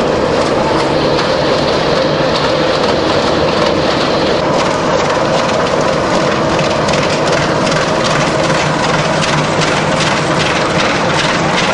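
Stationary industrial wood chipper driven by a large electric motor, running steadily with a loud mechanical drone; from about halfway on, many short knocks and clatter sound over it.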